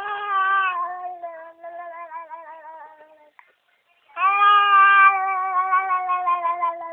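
A baby making two long drawn-out vocal noises, each slowly falling in pitch. The first breaks into a wavering warble about halfway through, and the second starts about four seconds in.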